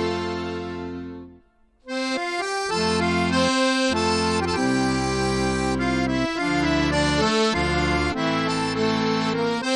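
Background accordion music, held chords over a bass line. It fades out about a second and a half in, stops for a moment, then starts again.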